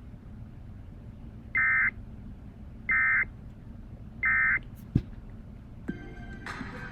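Emergency Alert System end-of-message signal: three short, identical bursts of screechy digital data tone, each about a third of a second long and spaced about a second and a half apart, marking the end of the tornado warning. It plays over a steady radio hiss, followed by a click and a brief tonal sound near the end.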